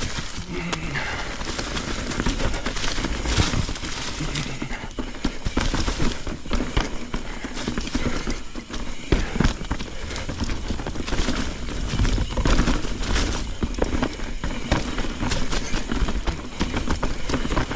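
Mountain bike tyres rolling fast over dry leaves, dirt and rock, with frequent sharp clicks and knocks of the bike rattling over roots and stones, over a steady low rumble.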